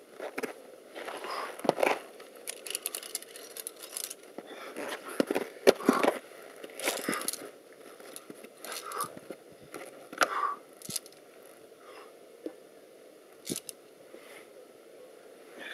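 Irregular scrapes, clicks and rustles close to the microphone, the movement and gear-handling noise of a climber on a via ferrata; a cluster of louder scrapes about six seconds in is the loudest part.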